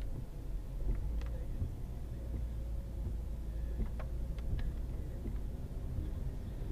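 Car cabin noise picked up by a dashcam microphone while driving: a steady low rumble of engine and road, a faint steady hum, and a few scattered light clicks.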